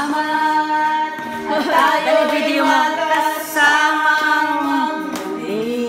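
Music with sustained singing voices, the notes held and gliding.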